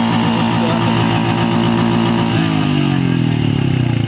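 TVS Apache 160's single-cylinder engine revved through its exhaust, held at high revs, then falling back from about two and a half seconds in towards a lumpy idle.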